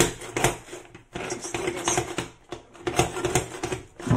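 Hand blender with a chopper bowl attachment run in about three short pulses, its blade chopping tomatoes inside the plastic bowl.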